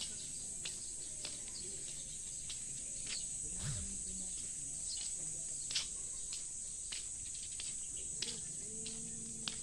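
Steady high-pitched insect chorus, like crickets, with scattered light clicks.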